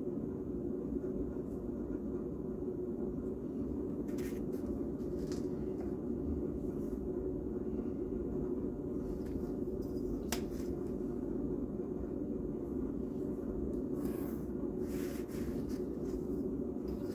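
Steady low background hum with faint scratches of a pencil drawn along a steel ruler on paper, a few strokes about four seconds in and again near the end, and one sharp click about ten seconds in.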